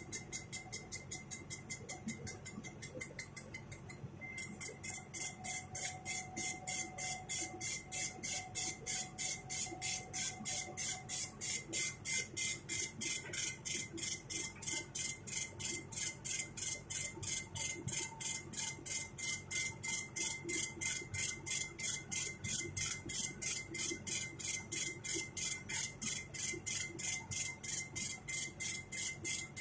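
CNC machine running: a steady high-pitched tone with rapid, evenly spaced pulses, about three a second, over a low steady hum.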